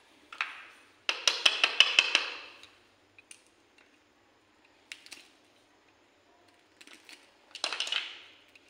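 Crisp deep-fried semolina dough pieces being broken apart by hand: bursts of crackling snaps, the longest starting about a second in, a few single cracks after it and another burst near the end.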